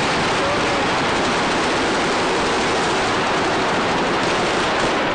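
Fireworks hissing in a loud, steady, even rush: the burning rocket of the Scoppio del Carro's dove (colombina) and the pyrotechnics it has just lit on the cart.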